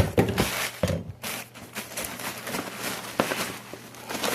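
Packaging being handled: sharp knocks, then irregular rustling and crinkling with small taps.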